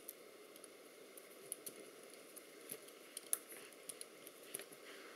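Faint, irregular small clicks and handling noises as fingers fit small screws and washers into the plastic cover of an accelerometer, with one louder click a little past three seconds in.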